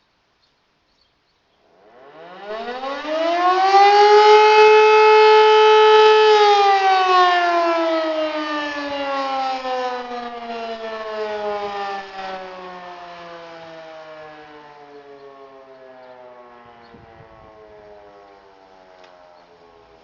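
E57 electromechanical motor siren sounding its test signal. It starts about two seconds in and winds up in a rising howl, then holds its top pitch for only about two seconds. After that it cuts out and coasts down in a long falling tone that slowly fades.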